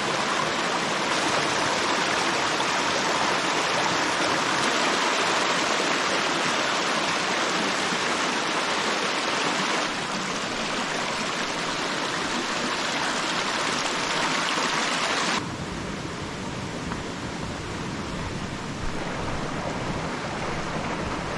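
Shallow stream rushing over rocks in small cascades, a steady rush of water. About fifteen seconds in it becomes quieter and duller.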